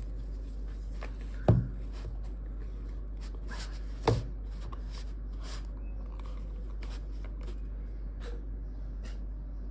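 Handling noise: light rustles and small clicks, with two dull knocks, one about a second and a half in and one about four seconds in, over a steady low hum.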